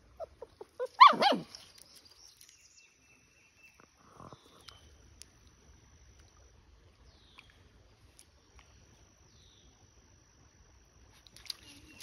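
Husky–poodle mix puppy whimpering: a few short high whimpers, then a louder cry sliding down in pitch about a second in.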